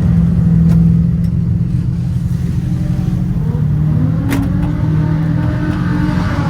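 Turbocharged Nissan Silvia SR20 engine running at fairly steady revs, a little louder for the first second, with a single sharp click about four seconds in.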